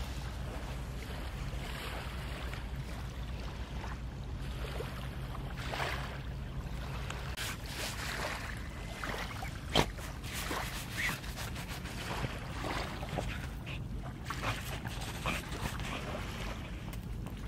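Wheaten terrier digging in beach sand: irregular scratching strokes of its paws in the sand, with one sharp knock about ten seconds in, over a steady low rumble of wind.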